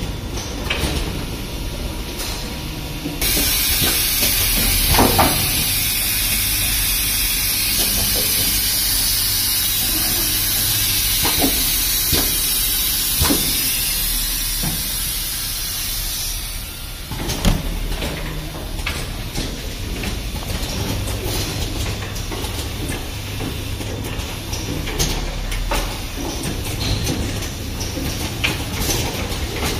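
Automatic rapid test kit assembly machine running, with a low hum and its mechanisms clicking and knocking irregularly. A loud steady hiss starts about three seconds in and cuts off at about seventeen seconds.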